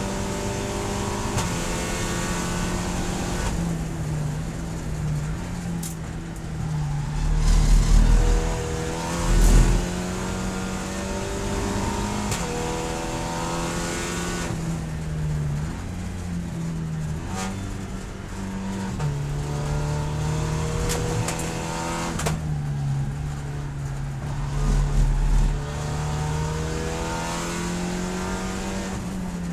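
Cabin sound of a Volkswagen Scirocco GT24 race car at speed, its turbocharged four-cylinder engine rising in pitch and dropping back at each gear change, over steady road and wind noise. Heavy low thumps come twice about eight to ten seconds in and once more about 25 seconds in. Near the end it is slowing, down into 4th gear.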